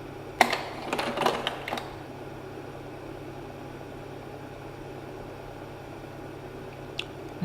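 Slide projector running with a steady motor-and-fan hum, with a sharp clack about half a second in and a small click near the end.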